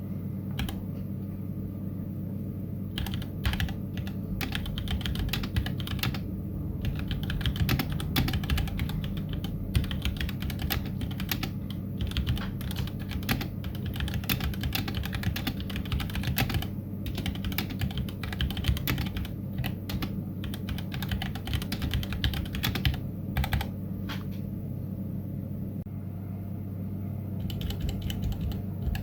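Typing on a Womier K66 mechanical keyboard with Gateron Red linear switches: a quick, continuous clatter of keystrokes with a few brief pauses, over a low steady hum.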